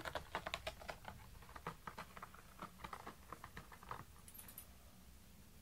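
Fleece blankets rustling as a hand handles and lifts them, a quick irregular run of soft crackles and taps that dies away about four seconds in.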